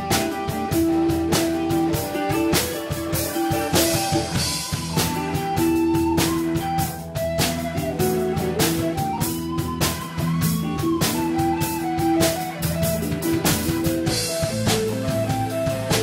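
Live band playing an instrumental jazz-blues tune: electric guitar leads with sustained and bent notes over a drum kit keeping a steady beat.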